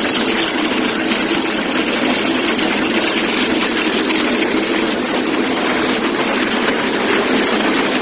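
Belt braiding machine running, its bobbin carriers and geared take-up rollers making a steady, dense mechanical clatter.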